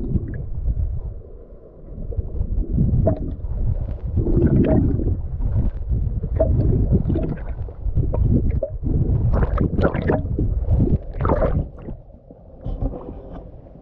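Muffled underwater sound of seawater churning and gurgling against a submerged camera's microphone: a low rumble broken by irregular splashy surges.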